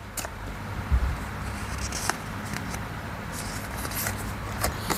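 Cards being handled as they are drawn and laid on a table: light clicks and rustles, with a soft low thump about a second in.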